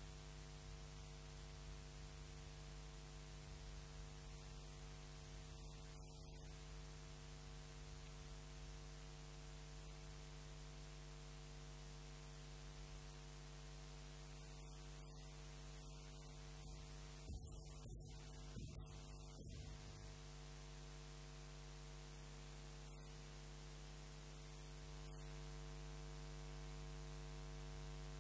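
Steady electrical mains hum with a faint hiss; nothing else stands out.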